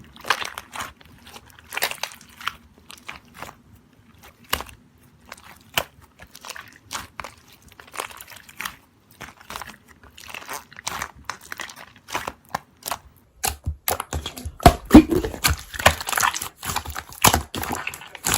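Slime being squeezed and pressed by hand, making irregular small crackles and pops that get denser and louder about three-quarters of the way through.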